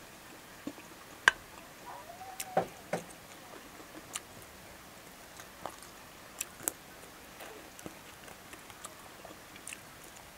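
Close-up eating sounds of someone eating rice by hand: scattered wet mouth clicks and smacks of chewing, irregularly spaced, the sharpest about a second in. A short rising-and-falling tone comes about two seconds in.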